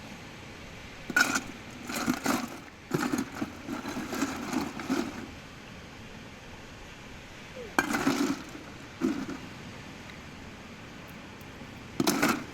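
Short bursts of clinking and clattering from hard objects being handled, in several groups, over a steady background of wind.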